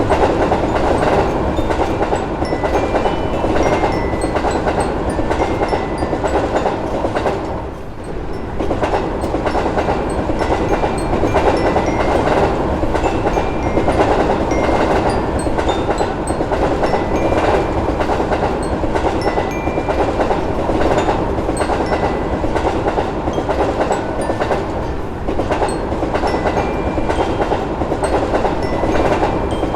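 Train passing, a continuous heavy rumble with wheels clacking steadily over the rail joints; the sound dips briefly twice, about eight seconds in and again near twenty-five seconds.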